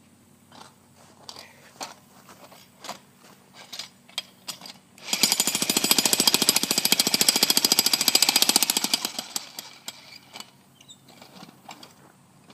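A jackhammer runs in one loud burst of rapid, even hammering lasting about four seconds, starting about five seconds in and trailing off, breaking up concrete. Scattered knocks and clicks come before and after it.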